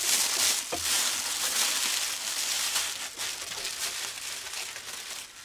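Aluminium foil crinkling and crumpling as it is folded around potatoes, loudest in the first few seconds and then tapering off.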